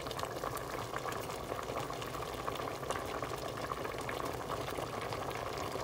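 Chicken bouillon simmering in a large metal pot: a steady bubbling with many small crackles and pops.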